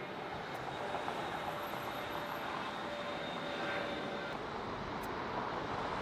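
Jet airliner engines, a steady rushing noise with a faint whine, growing gradually louder.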